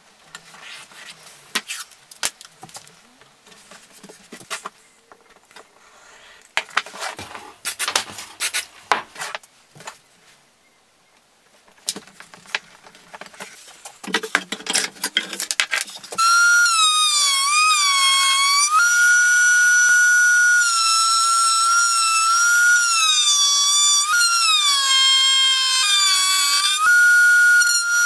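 Masking tape rustling and crackling as it is unrolled, torn and pressed onto an oak workpiece. About 16 seconds in, a table-mounted router starts with a loud, high whine and runs on, its pitch dipping and recovering several times as the bit bites into the oak leg pushed along the template.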